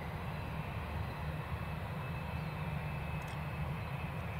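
Wizz Air Airbus A320-family airliner's twin turbofan engines running at low power on the landing rollout as it slows and turns off the runway: a steady deep rumble with a faint high whine over it.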